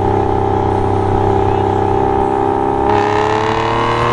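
Aston Martin V12 Vantage's six-litre V12 running under way through a Flowmaster exhaust that is kept loud all the time. The engine note holds steady, then about three seconds in it dips slightly and begins to climb as the car accelerates.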